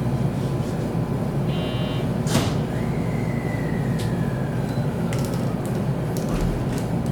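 Electric train running noise from a JR West Special Rapid, a steady low rumble. About two seconds in there is a sharp whoosh, followed by a thin whine that slowly falls in pitch over a few seconds, and then a few scattered clicks.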